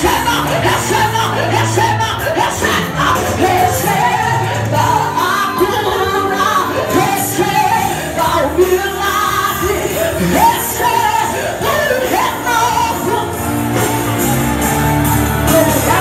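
Live Pentecostal gospel worship: a woman singing through a microphone over loud amplified backing music, with shouts from the congregation.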